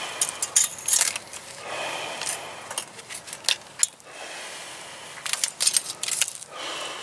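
Barbed wire being handled: a run of sharp metallic clicks, clinks and scrapes as the wire is wrapped around and twisted by hand.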